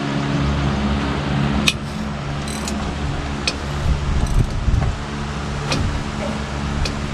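Scattered sharp metallic clicks and clinks of a ratchet and socket being worked on the diesel's cylinder head bolts, one short rapid run of ticks among them, over a steady low hum.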